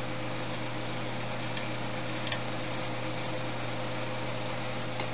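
Steady background hum and hiss with a low drone, broken only by one faint click about two seconds in.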